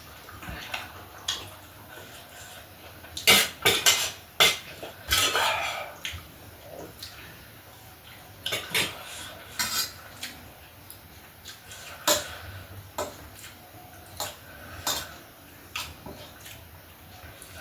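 Cutlery clinking and scraping against plates and bowls during eating: a run of sharp clinks about three to six seconds in, then single clinks every second or two.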